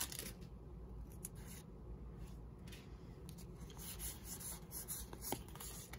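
Faint rustling and rubbing of a foil booster pack and trading cards being handled, with scattered light ticks.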